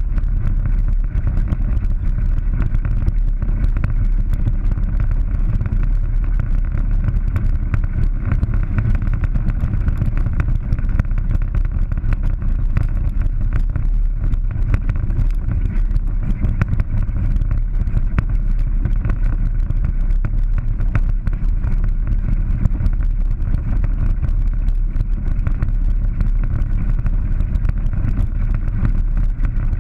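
Polaris 900 side-by-side's engine running steadily as it drives over a rocky dirt trail, with many small knocks from the rough ground.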